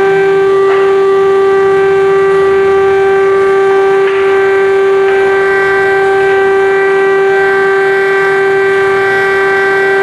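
Air-raid siren sounding an air-attack alert, holding one loud, steady tone.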